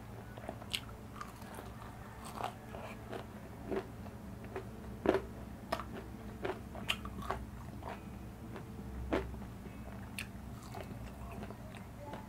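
Crunchy Korean fried chicken being bitten and chewed close to the microphone: irregular crisp crunches and clicks, the loudest about five seconds in.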